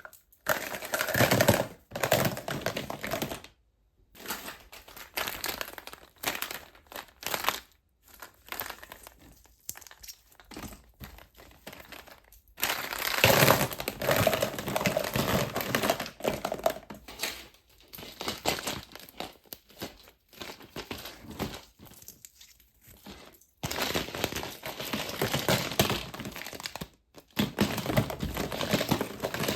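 Wrappers of surprise eggs and candy packs crinkling and tearing as they are unwrapped by hand. The rustling comes in irregular bursts with short pauses, and runs longer and denser in the middle and near the end.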